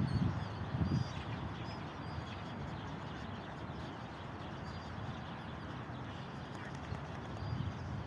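Steady outdoor background rush, with a few low thumps in the first second and faint, short, high bird chirps a few times.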